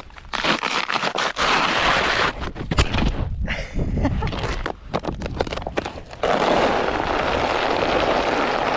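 Crunching and crackling of iced-over ground, with many short sharp cracks, then a steadier scraping noise from about six seconds in.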